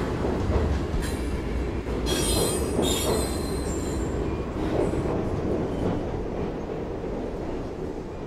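Loud low rumble with high-pitched metallic squeals about a second in and again around two to three seconds in, slowly fading toward the end.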